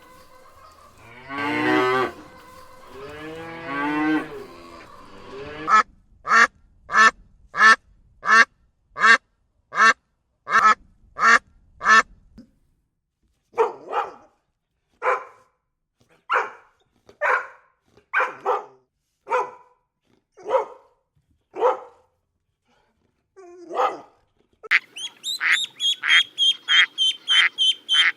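Farm animal calls one after another: cows mooing for the first few seconds, then a long run of short repeated calls, about two a second and then about one a second, and fast quacking of ducks starting near the end.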